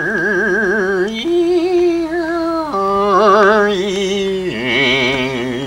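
A single voice singing long held notes with a wide, wavering vibrato, stepping to a new pitch every second or so.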